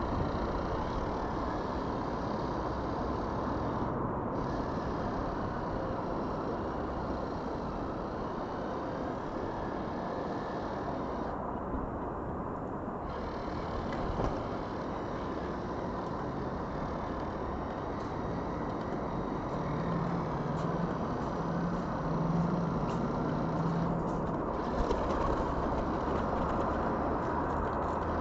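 Steady rumble and hiss of distant road traffic, with a low engine hum coming up for a few seconds about two-thirds of the way through.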